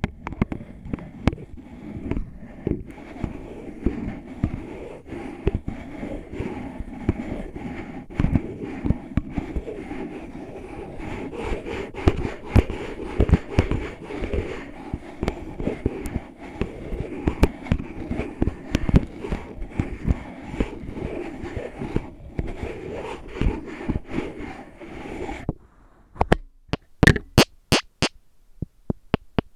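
Close-up scratching and picking at an oil bottle: a dense run of crackly scrapes and clicks. Near the end this gives way to sharp, separate taps, several a second.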